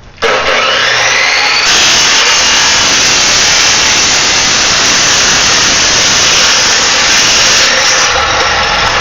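A Hilti electric power tool is switched on. Its motor whines up to speed over about a second and a half, then runs loud and steady with a harsh cutting or grinding noise.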